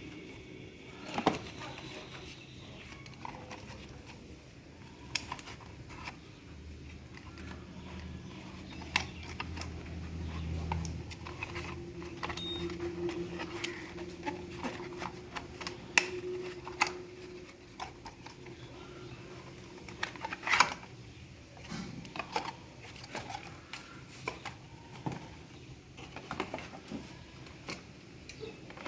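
Irregular clicks, taps and light knocks of small hard parts being handled while a computer is put together. The sharpest knocks come about a second in, near the middle and about two-thirds of the way through, and a faint low hum runs for a few seconds in between.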